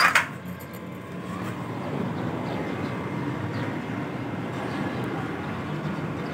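A brief clatter right at the start, then a steady low outdoor rumble of background noise.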